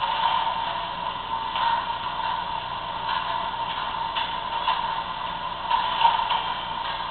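MTH O gauge model PCC streetcar running along its track: a steady hum with occasional faint clicks.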